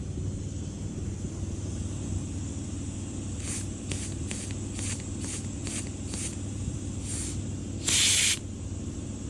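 Short hissing spray bursts through the windshield washer line and its check valve: a quick run of them, then a longer, louder burst near the end. A steady low hum runs underneath.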